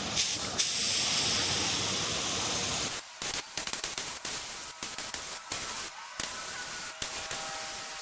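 Compressed-air spray gun spraying primer at low air pressure: a steady hiss that cuts off about three seconds in, followed by a string of short, choppy bursts.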